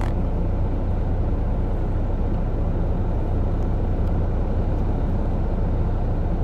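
Steady low hum of a car running, heard from inside the cabin, with no change in level.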